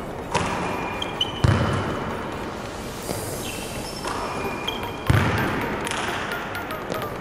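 Basketballs bouncing on a hardwood gym floor: a few heavy thuds, about a second in, at a second and a half, and again about five seconds in, echoing in a large hall. Short high sneaker squeaks come between them.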